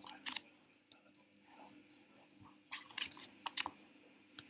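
A baby slapping a hard tabletop with an open hand: a couple of sharp slaps just after the start, then a quick run of several slaps about three seconds in and one more near the end.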